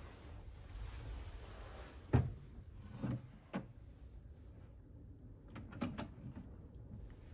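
A mini fridge door shut with a sharp knock about two seconds in, then a pull-out wastebasket drawer being opened and handled: two more knocks, and a few light clicks near the end.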